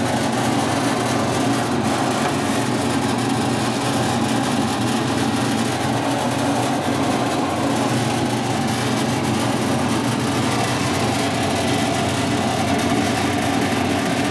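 1960s Boice-Crane 14-inch bandsaw running steadily with its wheel cover open, the motor and wheels giving an even mechanical hum.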